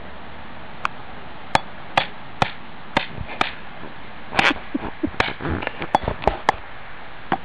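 Snap pops (bang snaps) going off one after another: about fifteen small, sharp cracks at irregular intervals, some close together in the middle.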